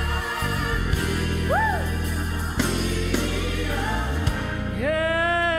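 Live gospel music: a band with bass and keyboards playing under a solo female voice, which sings a short rising-and-falling phrase about a second and a half in, then slides up into a long held note near the end.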